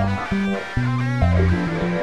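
Background music led by guitar, with a bass line moving from note to note.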